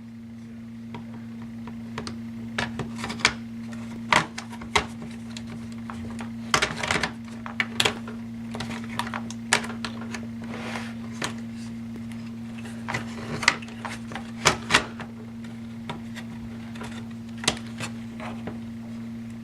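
Irregular plastic clicks, taps and small knocks from an Asus U50F laptop's case and parts being handled and pried apart by hand, over a steady low hum.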